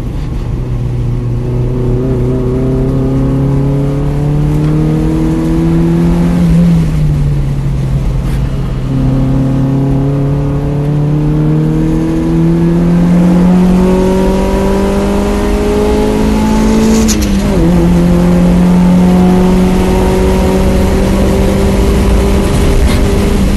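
2001 Mazda Miata NB2's four-cylinder engine heard from the cockpit, accelerating hard on track. The pitch climbs through the revs, drops sharply at upshifts about seven and seventeen seconds in, climbs again after each, and falls away just at the end.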